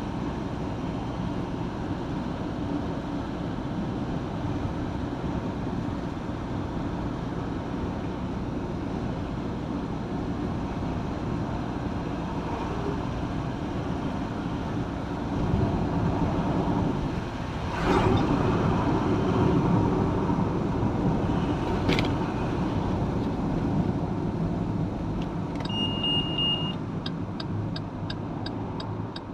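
Car driving, heard from inside: steady road and engine noise that grows louder about halfway through, with a couple of sharp clicks. Near the end comes a short beep, then the regular ticking of the turn-signal indicator, about two to three ticks a second.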